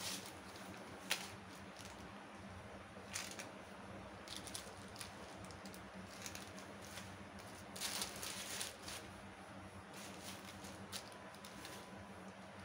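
Faint rustling of fabric and crinkling of a plastic packet as a saree is pulled out and spread flat, with a few sharper crackles, the biggest about a second in and around eight seconds in, over a steady low hum.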